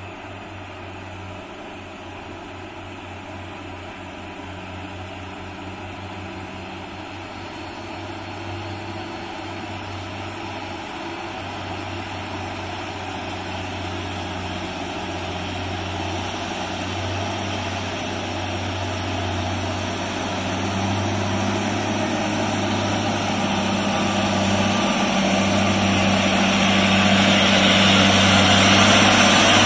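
Diesel engine of a log-laden Mitsubishi Fuso truck running with a steady low hum as the truck slowly approaches, growing steadily louder throughout. A hiss of tyres on gravel builds in the last several seconds as it draws close.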